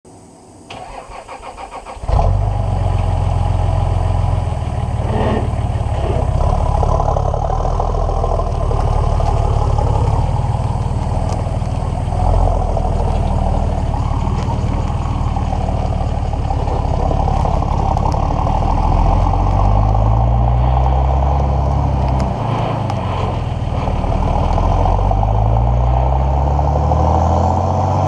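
The Nissan Patrol's 4.2-litre TD42 turbo-diesel straight-six, fitted with a 3-inch dump pipe and mandrel-bent exhaust, is cranked on the starter and catches about two seconds in. It then runs steadily with a deep diesel note. In the last third its pitch rises three times in quick succession as the vehicle accelerates away.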